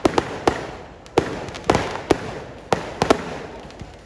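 Fireworks going off: a string of sharp bangs at uneven intervals, some in quick pairs, each trailing off in an echoing decay.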